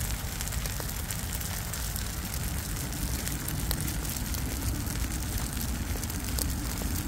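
Wood fire crackling in a metal brazier under a griddle pan of fried rice: a steady low rumble and hiss with scattered small crackles.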